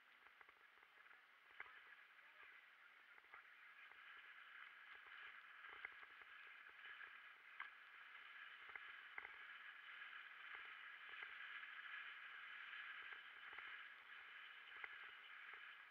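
Faint, muffled noise of a mountain bike rolling down a dirt track, heard through a camera housing, with scattered small knocks and rattles as the bike goes over bumps.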